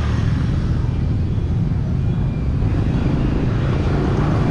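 Outdoor street ambience: a steady low rumble of wind buffeting the microphone, mixed with road traffic.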